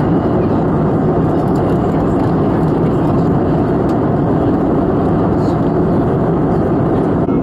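Airbus A320neo cabin noise: a steady rush of engine and airflow sound, strongest in the low and middle range, unchanging throughout.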